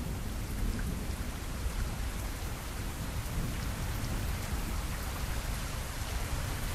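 Recorded rain sound effect: a steady hiss of rain with faint scattered drop ticks and a deep rumble underneath.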